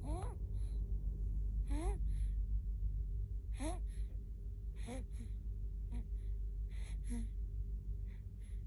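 Baby snoring: each breath is a short squeaky rising whistle followed by a breathy puff, about five breaths, one every one and a half to two seconds, over a steady low hum.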